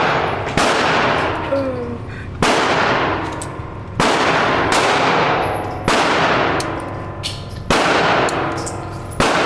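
Six gunshots at a steady pace, one every second and a half to two seconds, each followed by a long echoing decay, with fainter shots in between.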